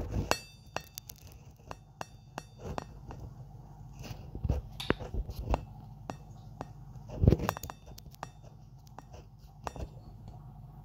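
Handling noise of a phone being set down and adjusted on a kitchen worktop: a string of light clicks, taps and clinks, with one louder knock about seven seconds in, over a faint steady low hum.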